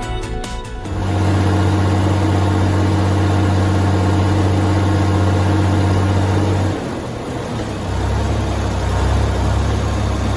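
Tractor engine running at a steady speed, then dropping to a lower, deeper note about seven seconds in.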